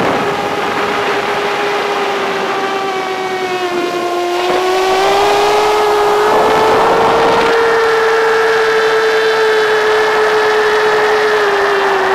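FPV drone's electric motors and propellers running with a steady pitched drone, the pitch sagging slightly about four seconds in, then rising and holding.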